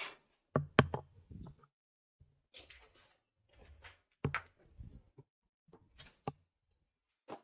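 Footsteps on rubble and loose boards: a string of uneven knocks and crunches, a step every half second to a second, with quiet gaps between.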